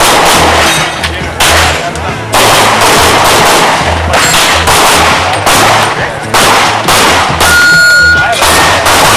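Rapid pistol fire from a competition handgun, shots coming in quick strings with brief pauses between them, each shot loud and sharp.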